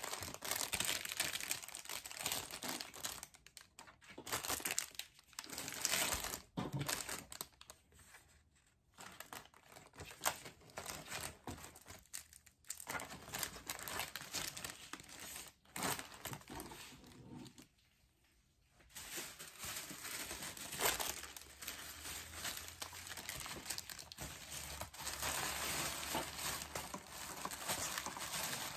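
Plastic wrapping, a padded poly mailer and tissue paper crinkling and rustling as hands pack them, in irregular stretches broken by short pauses.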